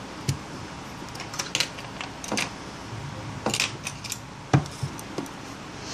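Small plastic and metal clicks and taps of an LG Nexus 5's internal parts being handled and pressed into place during reassembly, irregular, with the sharpest click about four and a half seconds in.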